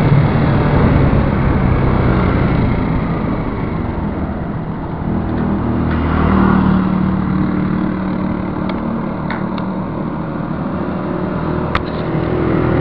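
Motorcycle engine running steadily under road and wind noise, swelling briefly about six seconds in, with a few sharp clicks near the end.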